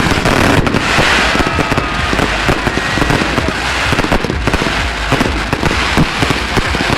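Fireworks display: a dense, continuous crackling of many small bursts going off together, with a few short whistles in the first few seconds.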